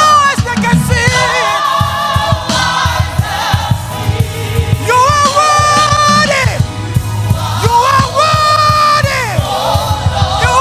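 Gospel choir singing with instrumental backing and a steady beat underneath; the voices hold long notes twice, about halfway through and again near the end.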